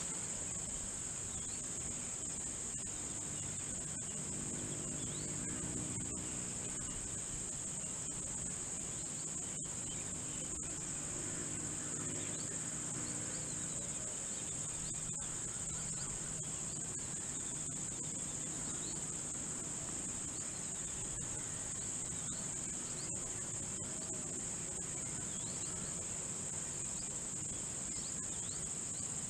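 Steady, unbroken high-pitched drone of a summer insect chorus, crickets or cicadas.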